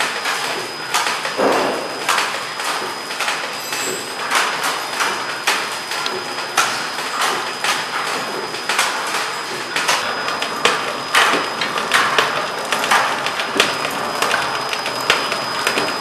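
Horizontal flow wrap packing machine running as it packs tape measures: an irregular clatter of mechanical clicks and knocks, several a second, with a thin steady high whine throughout.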